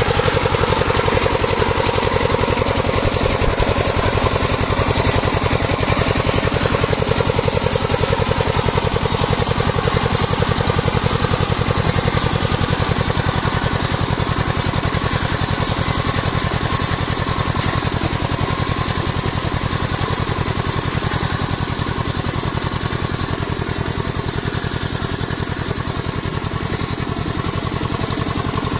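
Two-wheel power tiller's single-cylinder diesel engine chugging steadily under load as the tiller levels a flooded paddy field, with a rapid, even knock; it grows a little fainter in the second half.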